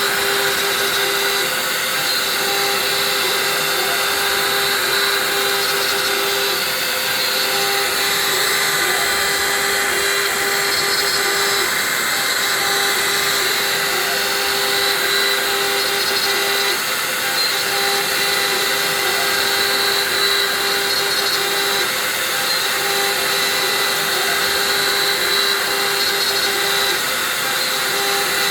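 Hobby CNC milling machine running, its motor giving a steady whine over a hiss that holds level throughout.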